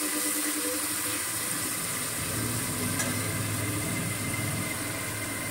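Chopped onions sizzling in hot mustard oil in an aluminium kadai, a steady frying hiss. A low steady hum joins about two seconds in, with one light click of the metal spatula about a second later.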